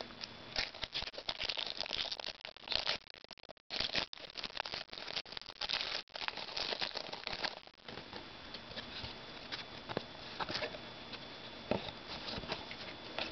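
A trading-card pack's wrapper crinkling and tearing open, then the cards being handled, with light papery clicks and rustles. The crackling is densest for the first eight seconds or so and thins to occasional clicks near the end.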